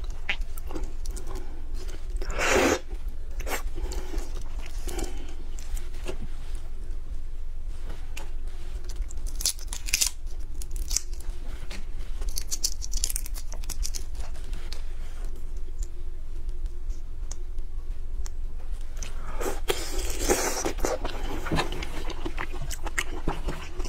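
Shell of a large cooked red prawn being cracked and peeled apart by hand close to the microphone: crackling and tearing, with a few louder bursts about two, ten and twenty seconds in, and crunchy chewing.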